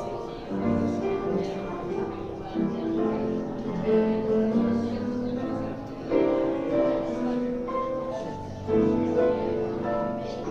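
Music with piano, in swelling phrases.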